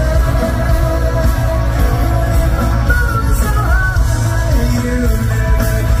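A male pop singer sings live through a microphone over loud amplified music with a heavy bass, heard from the audience of a concert hall.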